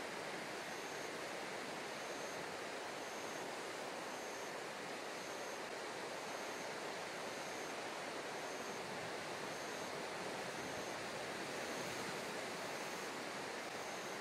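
Steady wash of sea water and wind, an even noise without breaks. A faint, short high-pitched tone repeats about once a second.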